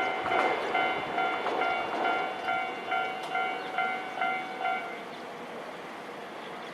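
Railway level-crossing warning bell ringing in quick repeated dings, about three a second, over the fading rumble of a passing train. The bell stops about five seconds in, a sign that the train has cleared the crossing.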